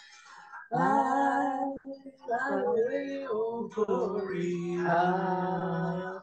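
A woman singing a gospel hymn solo and unaccompanied, in slow phrases with long held, wavering notes. After a short breath she starts a new phrase about a second in, and ends on a long held note.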